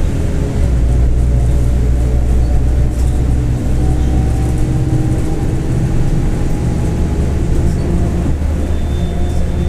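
Mercedes-Benz OF-1721 BlueTec 5 bus under way, its four-cylinder diesel giving a steady low drone. Above it a faint whine rises slowly in pitch from the differential, which growls on this bus.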